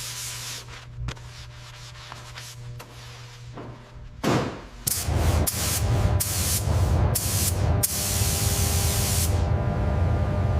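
Workshop sounds: light rubbing and scraping over a steady low hum, then from about halfway repeated loud bursts of compressed-air hissing over a low rumble, the hissing stopping near the end.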